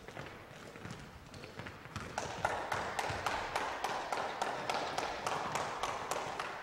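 Basketballs being dribbled on a gym floor: quick repeated bounces, about three a second, growing louder and busier about two seconds in.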